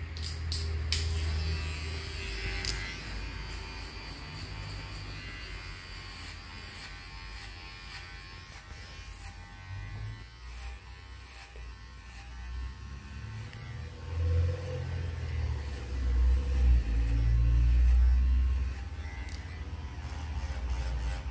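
Cordless electric hair clipper buzzing steadily as it trims the neckline, around the ear and along the beard line. Louder low rumbling bumps come about two-thirds of the way through.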